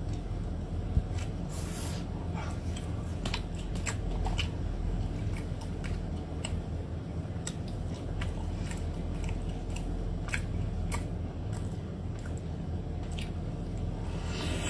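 Close-miked eating of spicy crawfish: irregular wet smacks, sucking and chewing, with sharp clicks scattered throughout, over a steady low hum.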